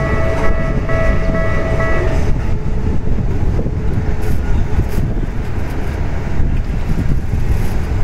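Japanese railway level-crossing warning bell dinging rapidly and evenly, then stopping about two seconds in as the crossing clears. Under it runs a steady low rumble from the departing train and wind on a phone microphone.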